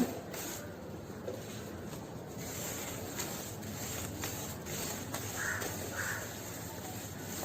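A crow cawing twice, two short calls about half a second apart near the end, over steady background noise.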